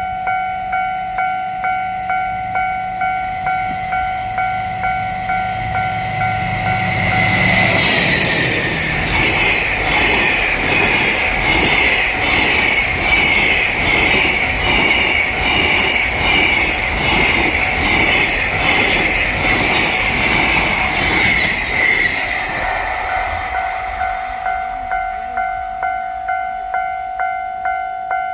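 Level-crossing warning bell ringing about twice a second as a DF200 diesel-electric locomotive and its freight train approach. The train then passes close by for about fourteen seconds, a loud rush with a steady clickety-clack of wheels over rail joints that drowns out the bell. After it passes, the crossing bell rings on and then cuts off suddenly near the end.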